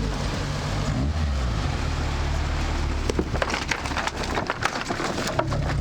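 Lada Niva engine running at low revs on a rough track. From about three seconds in there is a quick run of clattering knocks and rattles.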